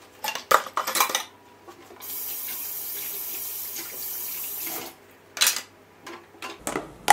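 Kitchen tap running into a sink for about three seconds, with pots and dishes clattering against each other and the dish rack before and after.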